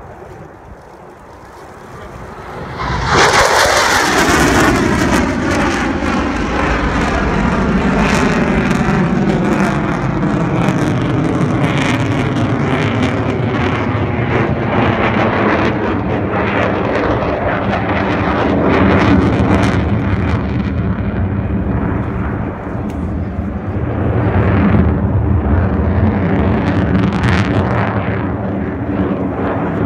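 F-16 fighter jet flying past low and very loud: its engine noise comes in suddenly about three seconds in and runs on, with falling sweeps in pitch as the jet moves, swelling again near the end.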